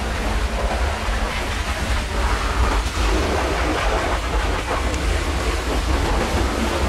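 Truck-wash equipment running with water and foam rushing: a steady low rumble under an even rushing hiss.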